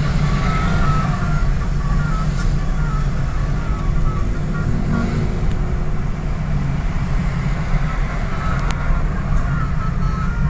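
A bus running with a steady heavy low rumble of engine and road noise. A faint run of short stepped beeping tones comes in the first few seconds and again near the end.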